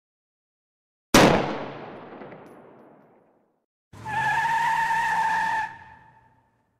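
Compressed-air hiss from a city bus: a sudden loud blast of air about a second in that dies away over about two seconds. Then a steady hiss with a whistling tone in it lasts nearly two seconds and fades out.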